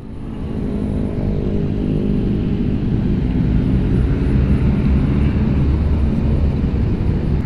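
Motorcycle engine running steadily amid city traffic and wind noise, swelling over the first second or so, then holding even.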